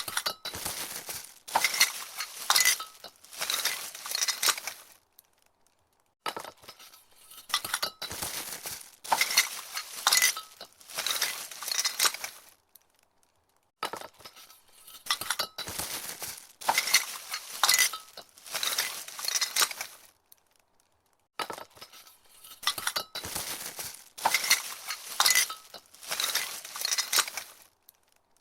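Glass Christmas tree ornaments clinking and rattling against each other inside their cardboard package as the box is grabbed and picked up, in four separate handlings with short pauses between.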